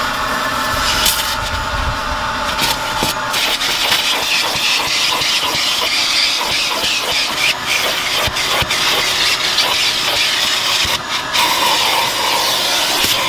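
Vacuum running with a crevice nozzle dragged over car floor carpet: a steady suction hiss over a motor whine, with many small ticks of grit and debris rattling up the hose. The whine shifts in pitch near the end as the nozzle seals against the carpet.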